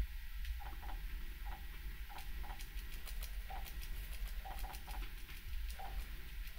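Scattered light clicks and taps from a phone being handled and keyed at the desk, with a few faint short beeps, over a steady low room hum.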